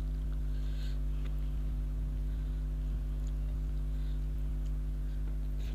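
A steady low hum of evenly spaced tones, unchanging throughout, with a few faint clicks and a soft rustle about a second in.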